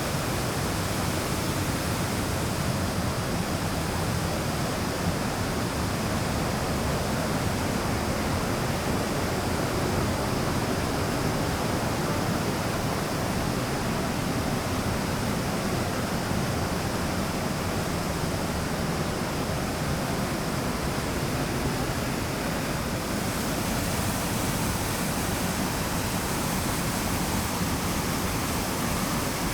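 A waterfall pouring steadily: a full, even rush of falling water with no breaks. A little before the end, its hiss turns slightly brighter.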